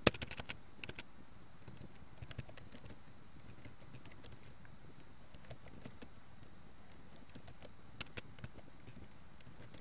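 Computer keyboard keys clicking as text is typed slowly, in scattered keystrokes over a steady background hiss. A quick run of clicks at the very start is the loudest, and another cluster comes near the end.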